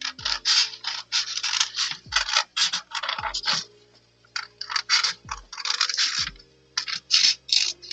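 Stationery work on paper: a run of short scratchy rubbing strokes that pauses briefly about halfway through, then starts again.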